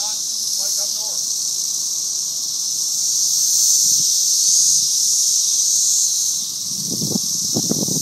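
A swarm of cicadas calling together: a loud, steady, high-pitched shrill drone that swells and eases a little.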